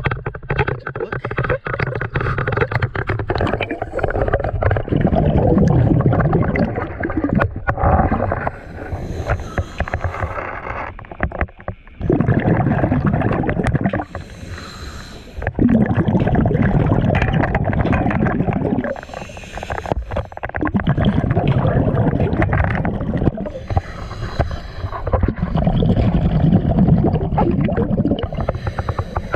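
Diver breathing through a diving regulator underwater: a short hiss on each inhale, then a long bubbling rumble as the exhaled air escapes, in a cycle of about five seconds.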